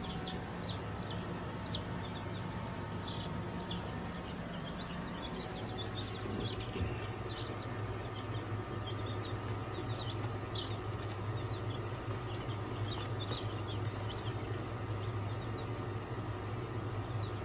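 Two-week-old meat chicks peeping, short high chirps scattered all through, over a steady low hum.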